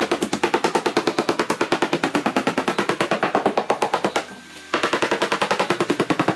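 Rapid hammer taps on a foam-and-fiberglass boat hull, about ten a second, with a short break about four seconds in.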